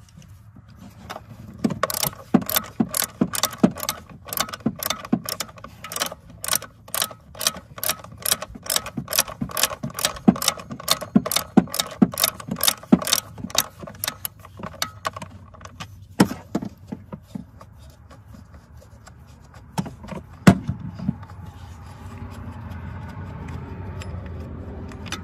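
Hand ratchet clicking quickly and evenly, about three clicks a second, as a bolt is backed out. The clicking stops about halfway through, followed by a few single knocks of the tool.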